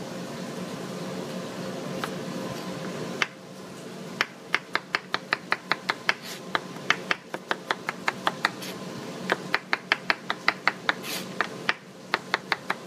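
Chef's knife dicing carrots on a white plastic cutting board: rapid, even knife strikes, about four a second, starting about four seconds in with a couple of short pauses. A steady background hum runs underneath.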